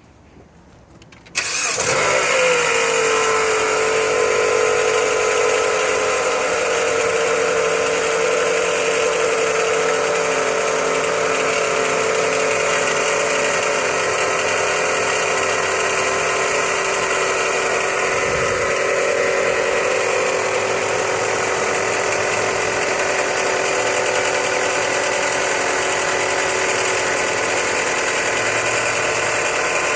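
Chrysler 200 engine starting about a second in and settling to a steady idle; a pitched tone drops as the revs settle, then holds. The running engine carries the noise of a bad pulley, traced to the alternator.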